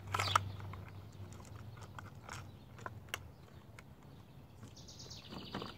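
Hard plastic blister packaging of a fishing lure crinkling and clicking as it is pried open by hand, with a loud crackle about a quarter second in and scattered clicks after. A short, high bird call is heard near the end.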